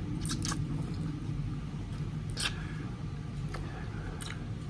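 Mouth sounds of someone eating pancit canton noodles: a handful of short wet slurps and smacks, the longest and loudest about halfway through, over a steady low background rumble.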